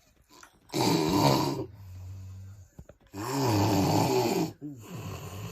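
An overweight person snoring very loudly in sleep: two long snores with a wavering pitch, about two seconds apart, each followed by a quieter breath.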